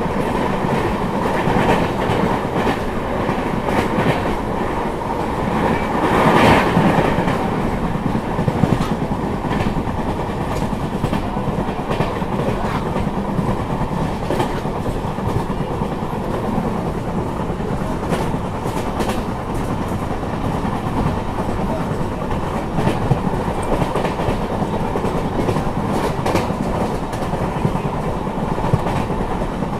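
Onboard running noise of an LHB passenger coach at speed: a steady rumble of steel wheels on rail with irregular clicks over rail joints, swelling louder for a moment about six seconds in.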